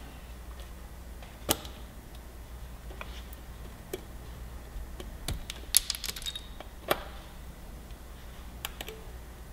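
Irregular small clicks and light clatter of parts being handled at a Kawasaki Ninja 400 throttle body, with a quick cluster of clicks about six seconds in, over a low steady hum.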